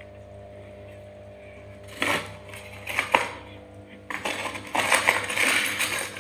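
Ceramic heater-stove plates and coiled heating elements clinking and scraping against each other as they are handled and fitted into the stove body. There are single clinks about two and three seconds in, then continuous rattling from about four seconds on.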